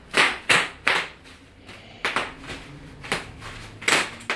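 Bubble wrap popping under foot: about seven sharp, loud pops at uneven intervals, three close together at the start and the rest spread out.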